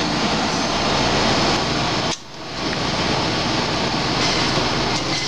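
Steady noise of commercial kitchen ventilation fans running, dropping away for a moment about two seconds in.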